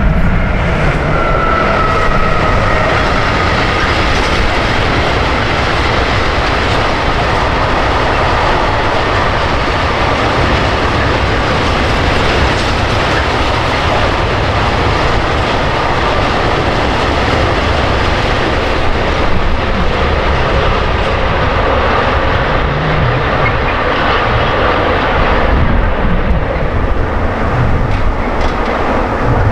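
Train passing at speed: a steady rolling noise of wheels on rails, with a faint high whine in the first few seconds.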